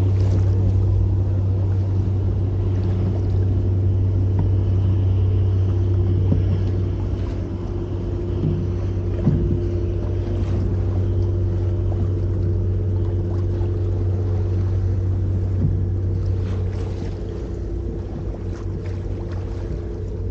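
Boat engine running at a steady speed, a constant low drone, with a few light knocks about halfway through and again near the end.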